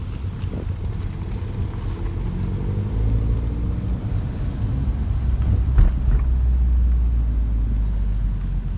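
Cabin sound of a Mini Cooper S R56's 1.6 turbocharged four-cylinder petrol engine pulling away at low speed, the revs climbing, over a low road rumble. One short knock about six seconds in.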